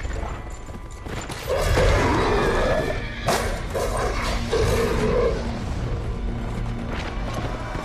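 Film soundtrack mix: music under growling creature roars in two stretches, with a sharp crash between them about three seconds in.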